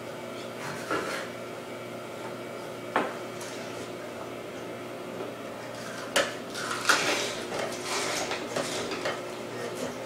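Twin-gear juicer running with a steady hum. A couple of single knocks come in the first few seconds, from a knife on a cutting board. From about six seconds in there is a run of clattering and crunching as vegetables are pushed down the feed chute with a wooden plunger and ground in the gears.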